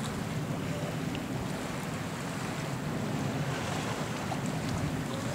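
Steady wind on the microphone mixed with water washing and splashing past a boat under way on choppy open water.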